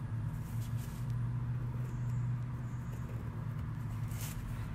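A steady low hum, with a few faint scratches of a pen pressing lines into a drawing.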